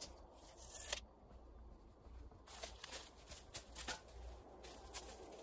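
Footsteps crunching through dry leaf litter and twigs, with irregular crackles and snaps over the second half. A single sharp click about a second in is the loudest sound.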